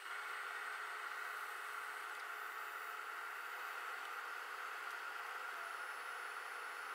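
Steady, even hiss with no distinct knocks or voices: the running electric pottery wheel and hands working wet clay, played back at triple speed.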